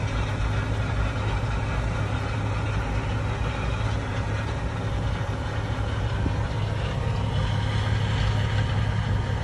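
Steady drone of a farm vehicle's engine heard from inside its cab, with a strong low hum that holds even throughout.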